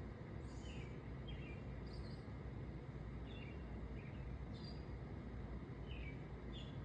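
Short, scattered bird chirps over a steady low outdoor background rumble.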